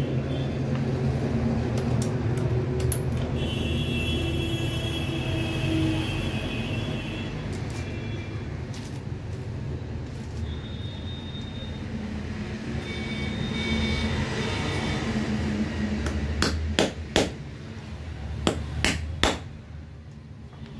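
A steady low background rumble, with about six sharp metal knocks and clinks in quick succession near the end as the steel parts of an angle grinder's gear housing and spindle are handled.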